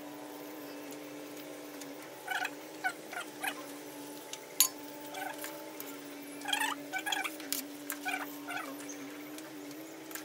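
Short animal calls in two bunches over a steady low hum, with one sharp clink, most likely a utensil against the steel pot, about halfway through.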